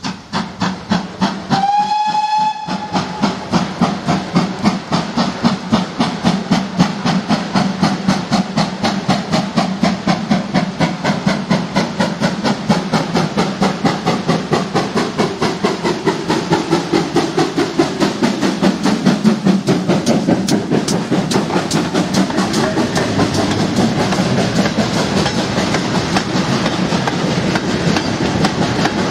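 A GWR Manor-class steam locomotive gives one short whistle about two seconds in, then pulls away with its heavy goods train, its exhaust beating in a steady rhythm. Near the end the wagons roll past with a clatter of wheels.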